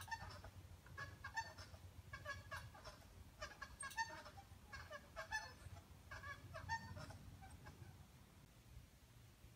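Uneven-bar rail and its cable rigging squeaking faintly, about once a second, as a gymnast hanging from it does repeated pike leg lifts; the squeaks fade out near the end.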